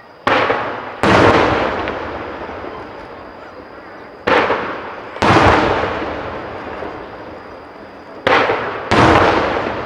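Aerial fireworks shells going off in three pairs of bangs about four seconds apart, each pair a sharp bang followed under a second later by a louder boom that rumbles and echoes away over a couple of seconds.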